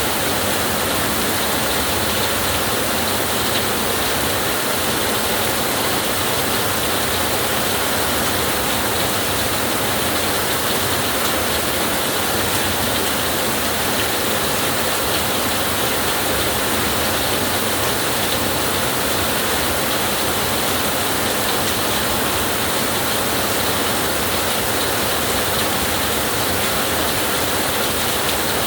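Heavy rain falling steadily: an even hiss of rain with faint fine drop ticks, unchanging in level throughout.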